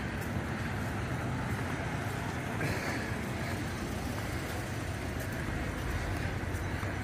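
Steady low rumble of outdoor background noise, even in level throughout, with no distinct events standing out.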